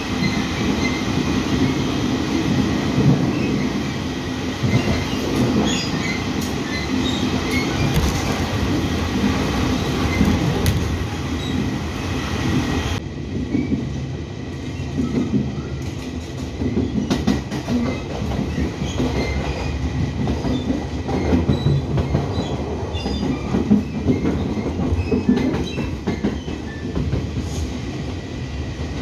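Folding-door Chu-kuang express passenger coach running along the line, heard from inside by the window: a steady rumble of wheels on rail with scattered clicks. About halfway through, the higher hiss suddenly cuts out.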